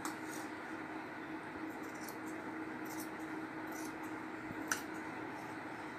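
Large tailor's scissors cutting through folded net fabric: faint scattered snips and blade clicks, with one sharper click about three-quarters of the way in, over a steady faint hiss and hum.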